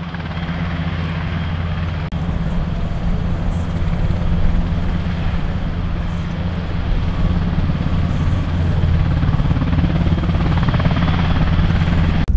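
Dutch NH90 twin-turbine helicopter running on the ground with its rotors turning: a steady low rotor throb over a thin, high turbine whine, growing slightly louder.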